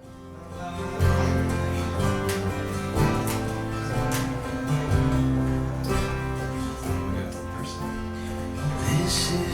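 Instrumental worship-song intro: acoustic guitar strumming sustained chords, roughly one stroke a second, fading in over the first second.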